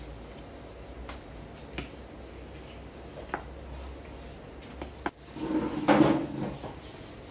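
Wooden rolling pin working dough on a wooden pastry board, with a few light knocks of wood on wood. Near the end comes a louder, clattering bout of handling noise lasting about a second.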